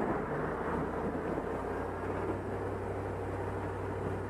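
Chevy Tahoe V8 engine brake-torqued in drive, its revs dropping back about a second and a half in to a steady, even idle. It runs without stumbling: no misfire under load.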